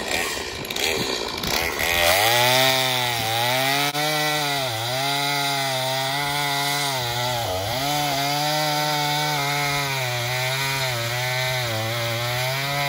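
Stihl MS 250 two-stroke chainsaw cutting through a log. From about two seconds in it runs at high speed, its pitch dipping and recovering several times as the chain loads in the wood.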